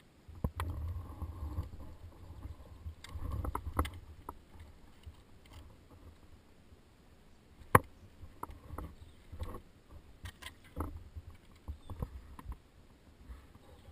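Scattered knocks, clicks and scuffs from a tree climber moving about in the crown and handling his ropes and a stopped chainsaw. A low rumble fills the first few seconds, and one sharp knock about eight seconds in is the loudest sound.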